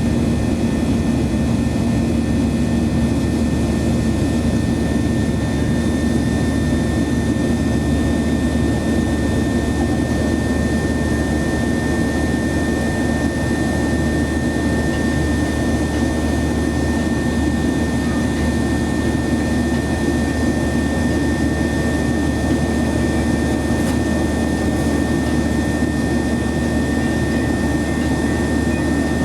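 Steady jet cabin noise inside a Boeing 737-800: the CFM56-7B turbofan engines running with airflow rush, a low drone and a thin steady high whine, unchanging throughout.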